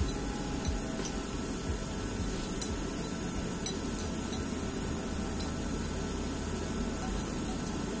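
Pot of mustard greens simmering under a glass lid: a steady hiss and hum with a few light ticks scattered through.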